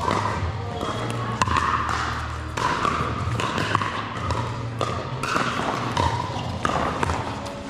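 Pickleball paddles striking a hard plastic pickleball in a rally: sharp pops about a second apart, echoing in a large hall over a steady low hum.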